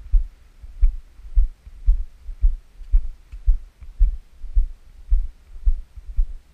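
Footsteps of a person walking on a dirt path, picked up as low, dull thuds about two a second through a body-worn camera, with a faint click on each step.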